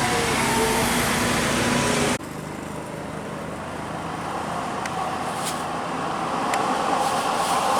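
Roadside traffic noise with vehicles passing. Loud at first, then it cuts off abruptly about two seconds in to a quieter stretch in which an approaching vehicle slowly grows louder.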